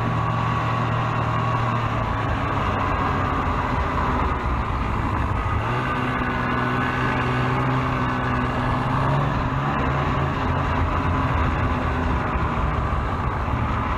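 Snowmobile engine running steadily under throttle while riding through deep snow, its note shifting slightly up and down, over the rush of the machine moving through the snow.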